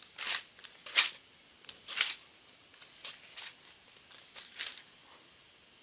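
Paper pages being leafed through: a series of soft rustles, about one a second.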